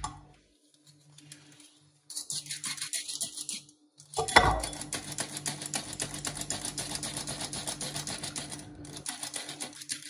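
Hand-squeezed stainless steel flour sifter being pumped, a rapid clicking rattle as the trigger handle works the agitator over the mesh and sifts flour into a bowl. The clicking starts about two seconds in, breaks off briefly, and runs on after a single thump about four seconds in.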